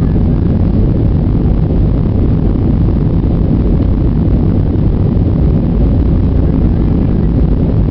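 Airliner cabin noise during the climb after takeoff: the jet engines at climb power and the rushing airflow make a steady, loud, low drone that does not change.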